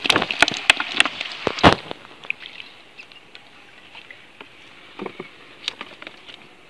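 Water splashing and streaming off a many-pronged fishing spear as it is lifted out of the water. The splashing is loudest in the first two seconds, then thins to scattered drips and taps over a faint, steady, high hiss of night insects.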